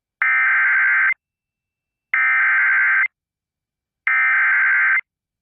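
Emergency Alert System SAME header: three identical bursts of screechy data tones, each just under a second long and about a second apart, encoding the start of a National Weather Service severe thunderstorm warning.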